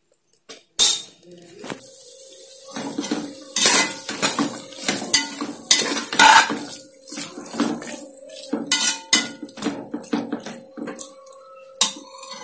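Spatula scraping and knocking against the inside of an aluminium pressure cooker in irregular strokes, stirring prawns into a thick onion-tomato masala to mix in freshly added spice powders. A faint steady tone runs underneath.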